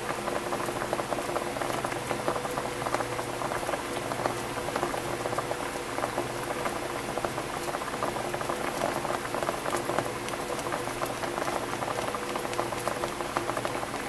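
Water boiling hard in a saucepan used as a water bath around a glass beaker: a dense, steady bubbling crackle, with a faint steady hum underneath.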